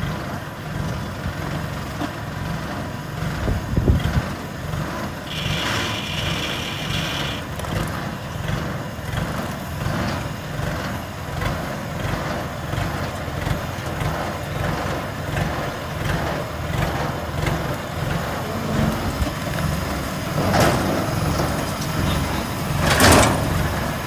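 Engine of a small tracked carrier running with a steady low chug as it crawls down an embankment. A high, steady sound lasts about two seconds around six seconds in, and two short hissing bursts come near the end.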